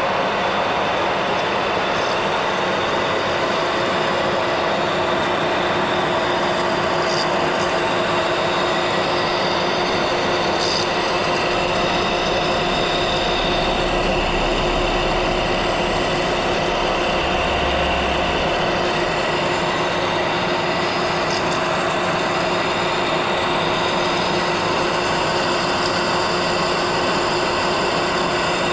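Heron engine lathe running, turning a roughing cut along a metal shaft with an insert tool. A steady machine noise with several held whining tones, unchanging throughout.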